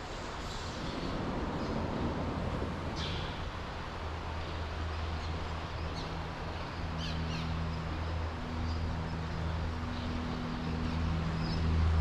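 A steady low engine hum, growing louder near the end, with a few short high bird chirps from swallows, about three in all.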